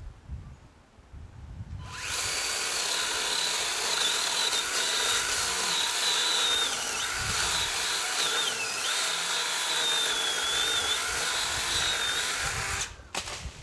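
Makita DUC302Z twin-18 V battery top-handle chainsaw running and cutting through red gum. It starts about two seconds in and stops shortly before the end. Its high motor whine dips in pitch twice as the chain loads up in the wood.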